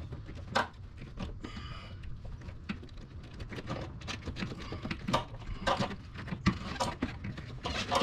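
Scattered light clicks, knocks and scraping as a brake master cylinder and ABS module assembly is worked by hand into place, bumping against the surrounding brake lines and fittings.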